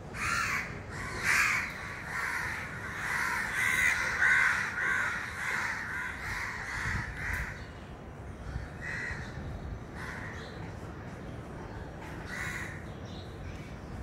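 Crow cawing in a fast run of short, harsh calls for about seven seconds, then two more single caws spaced a few seconds apart.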